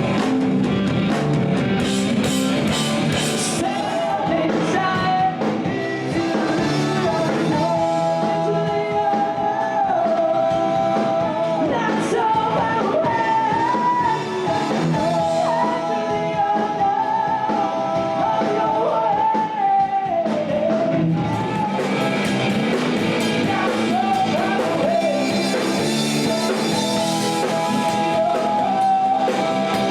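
A band playing rock and roll with a singer's voice carrying the melody over guitar and a steady beat.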